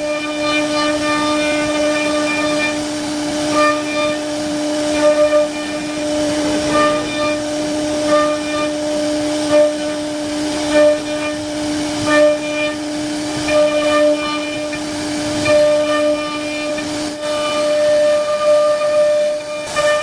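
CNC router carving wood: the spindle runs with a steady high whine while the bit cuts, and the cutting noise swells briefly every second or two as the head moves. The lowest tone of the whine fades out near the end.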